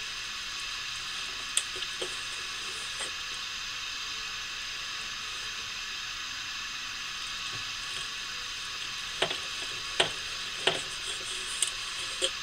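Knife cutting a rack of cooked baby back ribs on a serving tray, with sharp clicks as the blade knocks against the tray, a couple early and a louder cluster near the end, over a steady hiss.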